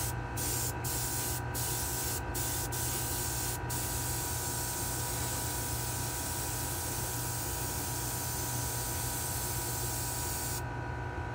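Gravity-feed airbrush spraying paint in a steady hiss, broken by several short pauses in the first few seconds as the trigger is let off. It stops shortly before the end, over a steady low hum.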